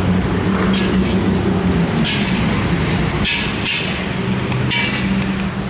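A steady low motor hum with several sharp metallic clanks at irregular intervals.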